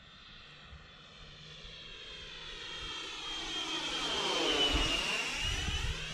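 Black Widow F-18 RC jet's 90 mm electric ducted fan flying past: the whine grows louder, peaks about five seconds in, then drops in pitch and fades as the jet goes away.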